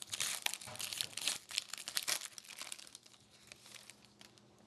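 Hockey card pack wrapper crinkling and tearing as it is opened, a dense crackle that dies away after about three seconds.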